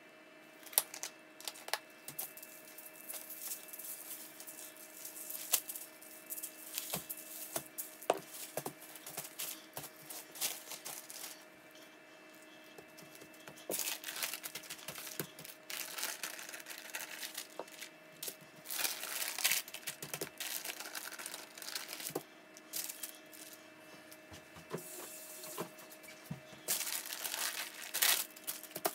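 Paper crinkling and rustling in several bursts as it is folded over and handled, after a run of scattered light clicks and taps, over a steady faint hum.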